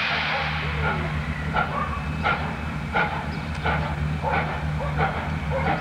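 Steam locomotive 3801, a C38-class Pacific, pulling away slowly with steady, evenly spaced exhaust chuffs about every 0.7 s. A hiss of steam fades out in the first second.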